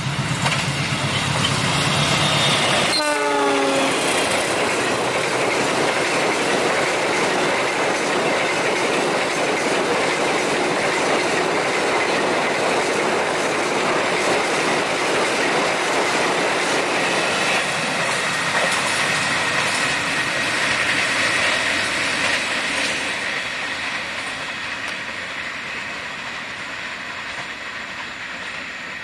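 Diesel-hauled passenger train passing close by. The locomotive runs past with a short horn sounding about three seconds in, its pitch dropping as it goes by. Then the carriages' wheels rumble and clack over the rails for a long stretch, fading away toward the end.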